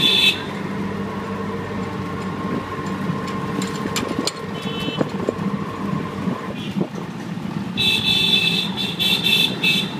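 Auto-rickshaw engine running steadily under way, heard from inside the open cab. A horn beeps briefly right at the start and again about halfway, then sounds in a quick run of short toots over the last two seconds.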